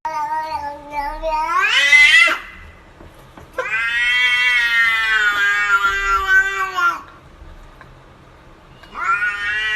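A domestic cat yowling in long drawn-out meows. The first rises sharply in pitch at its end, about two seconds in. A longer one follows and holds for about three seconds, and another starts near the end.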